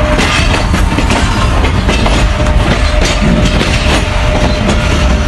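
Moving passenger train heard from aboard: a loud, steady running rumble with many irregular rattles and knocks from the wheels and carriage.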